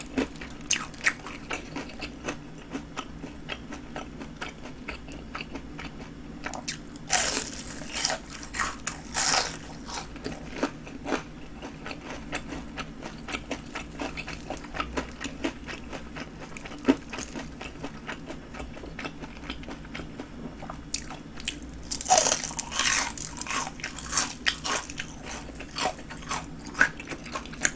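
Crunching of breaded fried king prawns as they are bitten and chewed. There are crisp, louder runs of crunching about seven to ten seconds in and again from about twenty-two to twenty-five seconds in, with quieter chewing clicks between.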